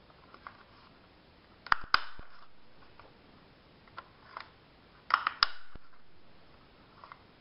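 Plastic corner punch snapping shut as it cuts the corners of a paper rectangle: two loud bursts of sharp clicks, about two seconds in and again about five seconds in, with lighter clicks between.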